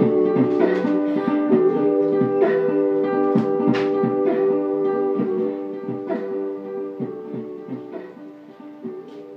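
A strummed string instrument playing chords with no singing, the strokes coming several times a second, then growing quieter over the last few seconds.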